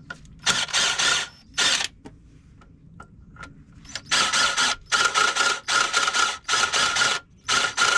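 Power drill running a countersink bit into tapped bolt holes, pulsed on and off in short bursts to control the depth of the bevel. A couple of short runs come first, then after a pause a quick string of about six bursts, each with a steady motor whine.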